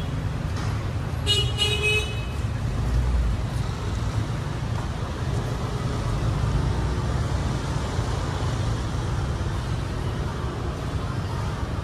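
Street traffic with engines running as a steady low rumble, and a vehicle horn honking twice briefly about a second and a half in.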